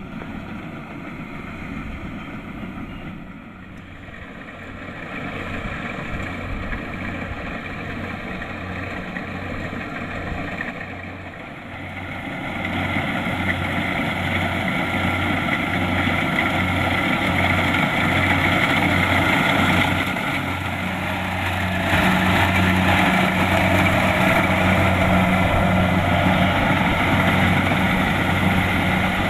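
Kubota DC-70 Plus combine harvester's diesel engine running steadily, growing louder about halfway through and again near the end.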